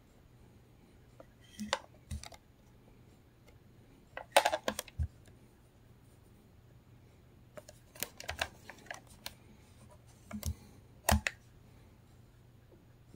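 Plastic clicks and knocks of a Philco portable cassette radio being handled and turned over in the hand, in four short clusters of sharp clicks.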